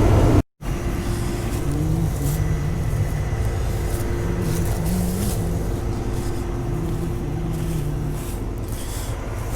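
Farm vehicle engine running steadily with a constant hum, cut off briefly by a moment of silence about half a second in.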